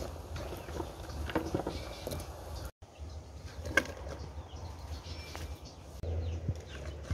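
Sliced bitter melon and eggplant being dropped by hand into an aluminium pot of simmering broth: soft knocks and rustling as the vegetables land and are pushed into place, over a steady low hum. The sound cuts out for an instant about three seconds in.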